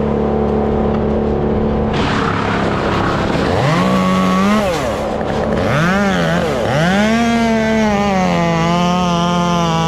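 A Stihl 201 two-stroke chainsaw is revved up and dropped back a few times from about three and a half seconds in, then held at high revs for about three seconds. A steady engine drone runs underneath throughout.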